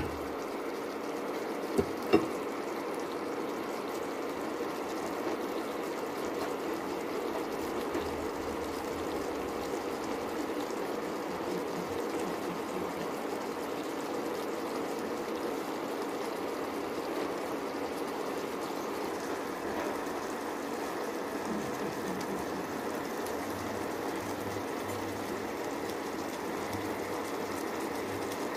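Eggplant curry simmering steadily in a pan on an induction hob, with two sharp clicks about two seconds in.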